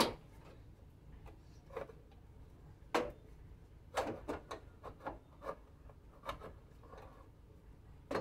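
Scattered knocks and scrapes as a Volkswagen Beetle alternator is handled and pushed into its stand on the engine: a sharp knock at the start, a louder one about three seconds in, then a quick run of knocks between four and five and a half seconds.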